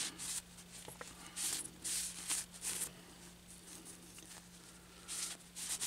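A shop towel wiping and rubbing over the metal face and rubber-coated gasket of a Sanden AC compressor's valve plate, in short scratchy strokes that come in groups with a pause of about two seconds in the middle. A faint steady hum lies underneath.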